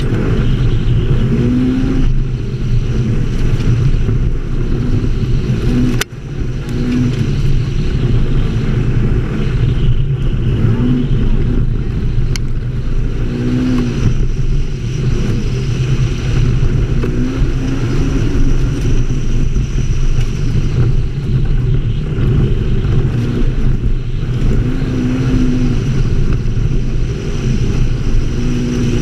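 ATV engine running under way on a dirt trail, its note swelling and easing in short rises and falls with the throttle. There is one sharp knock about six seconds in.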